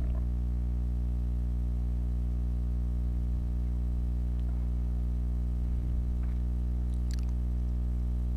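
A steady low hum with many overtones, unchanging throughout, with a faint rustle or click about seven seconds in.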